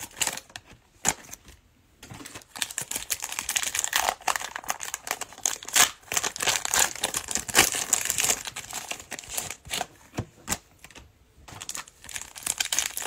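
Plastic wrapper of a Panini Mosaic football cello pack crinkling and crackling as it is torn open and crumpled in the hands, with short pauses about a second in and again about ten seconds in.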